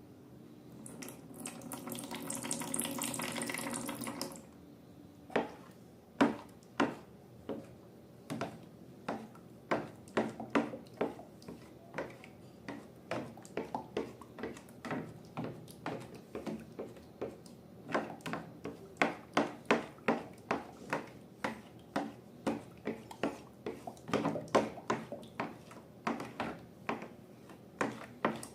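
Thick liquid pouring out for about three seconds, then a long run of short, sticky clicks and squelches, about two a second, as slime is stirred and worked in a bowl.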